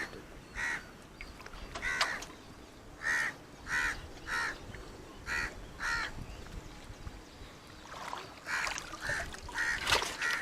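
A bird calling over and over, about a dozen short calls spaced roughly half a second to a second apart, coming faster near the end.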